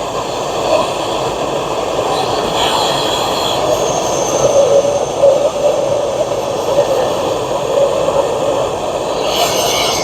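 Handheld bottle torch burning with a steady rushing roar as it is played over a ground-out crack in an aluminum fuel tank to burn off residual fuel and gunk before welding.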